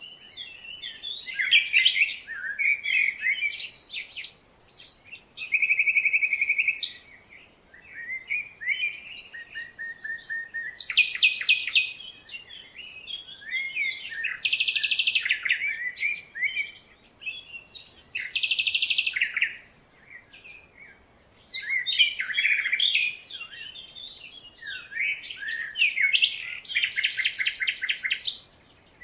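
Several jungle birds calling and singing in overlapping chirps and whistles, broken by a few rapid buzzing trills of about a second each.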